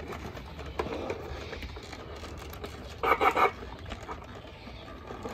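Stormtrooper-style plastic armour helmet being pulled on over the head: scraping and rustling of the helmet shell against the balaclava and armour, with a brief louder burst about three seconds in.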